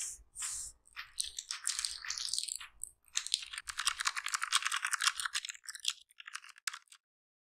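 Rapid clicking keystrokes of an Azio retro typewriter-style keyboard, heard from a typing-sounds video played back through a Samsung Galaxy Z Flip's small speaker, thin with little bass. The keystrokes come in quick, dense runs and stop suddenly about seven seconds in.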